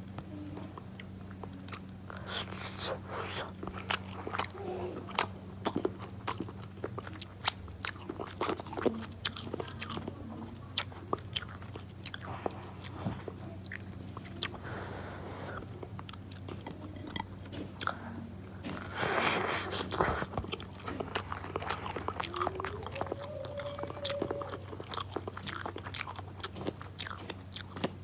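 Close-up chewing and biting of an egg breakfast: many small sharp, wet mouth clicks, with a louder hissing rush about two-thirds of the way through. A steady low hum runs underneath.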